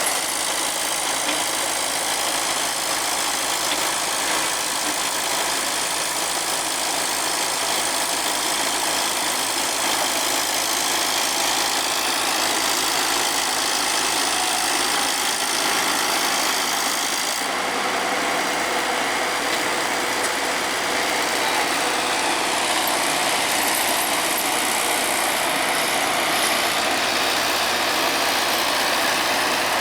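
Heavy machinery diesel engine running steadily, with an abrupt change in tone about 17 seconds in.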